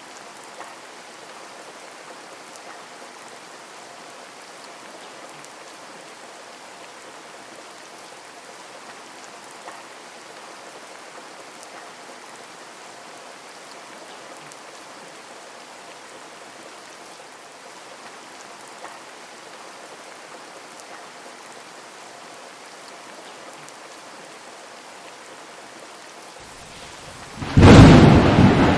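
Steady heavy rain falling, with an occasional louder drop. Near the end a sudden loud clap of thunder breaks in and keeps rumbling.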